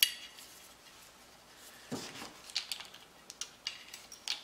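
Small metal clicks and light rattles of a Sig Sauer Mosquito pistol's guide rod and recoil spring being handled and fitted to the slide. A sharp click right at the start, then scattered small ticks.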